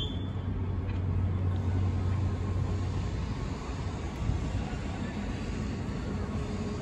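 Steady low rumble of outdoor background noise, with a low droning hum that is strongest for the first few seconds.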